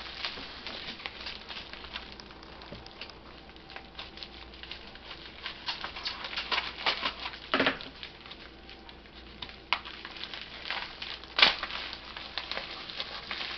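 Plastic bubble wrap crinkling and rustling as it is handled and unwrapped, a dense patter of small irregular crackles, with two louder sharp snaps.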